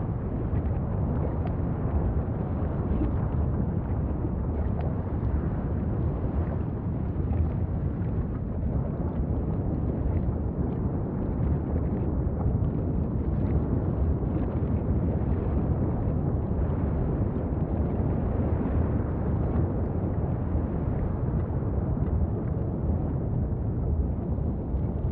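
An erupting volcanic vent gives a steady low rumble that never pauses, with faint crackling running through it.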